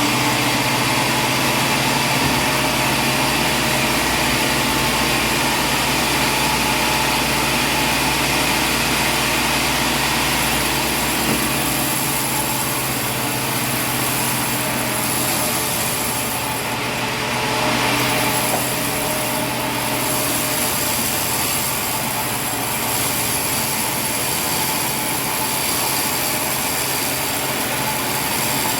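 Sawmill machinery running steadily: a continuous loud mechanical noise with a constant hum and a high whine, with small swells in level around the middle.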